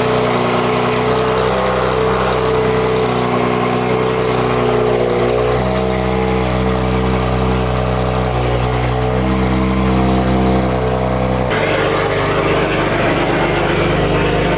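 BMW M2 Competition race car's twin-turbo inline-six idling loudly just after start-up through a straight-piped exhaust, the idle note shifting slightly about five seconds in.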